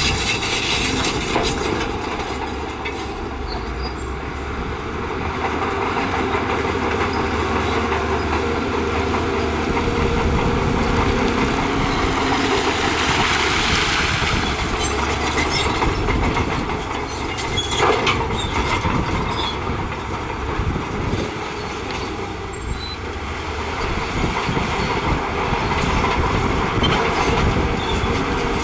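Heavy earthmoving machinery at work: a diesel engine running under load with steady metallic clatter and rumbling, and a few sharp knocks, one about two-thirds of the way through.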